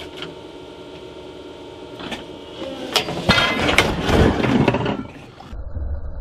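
Gen 3 Toyota 4Runner dropped 2 feet onto a boulder, landing on its DOM steel tube rock slider: a heavy crash about three seconds in, then a second or so of clanking and rattling. An engine runs steadily underneath.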